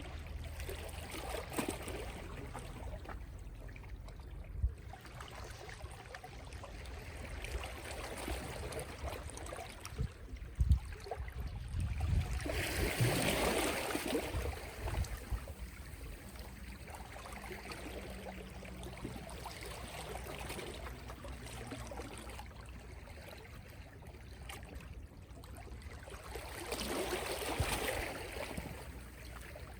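Small, gentle sea waves washing and lapping on the shore, swelling to a fuller wash a little before halfway and again near the end.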